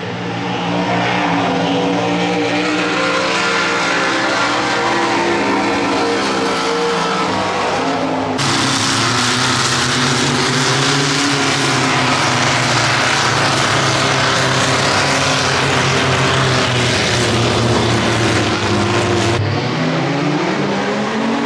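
Swamp buggy race engines running hard as the buggies plow through the water, over a wash of noise. The sound changes abruptly about eight seconds in and again near the end, where several engines rev up with a rising note as the buggies pull away from the start line.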